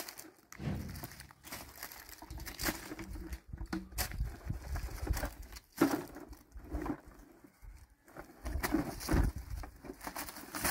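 Dry fallen leaves rustling and crunching underfoot, with a plastic sack and plastic bottles crinkling as rubbish is picked up and stuffed into the sack; the rustles come in irregular bursts.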